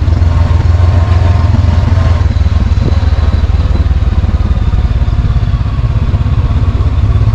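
Motorcycle engine running as the bike is ridden, a steady low throb.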